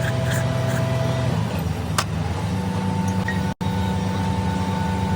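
A machine running steadily with a low hum and a thin steady whine. It cuts out abruptly for an instant past the middle, and when it resumes the whine is higher. There is a single click about two seconds in.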